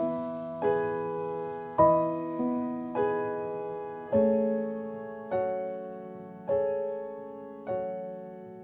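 Background piano music: slow, gentle chords, a new one struck about every second and a bit, each ringing and fading before the next.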